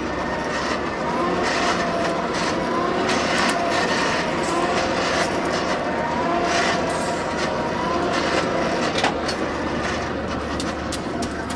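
Hand-cranked forge blower being turned steadily, forcing air into the fire to bring it up to heat. It makes a continuous whirr, with a faint gear whine that rises and falls over and over.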